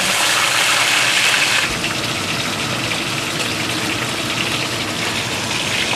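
Whole fish frying in hot oil in a wok: a steady sizzle of bubbling oil, a little louder for the first couple of seconds.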